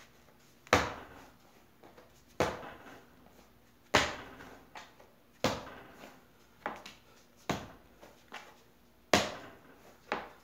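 Lump of white porcelain clay being spiral-wedged by hand on a round stone slab. A dull thud comes each time the clay is pushed down and rolled over: about six strong ones roughly a second and a half apart, with softer knocks between.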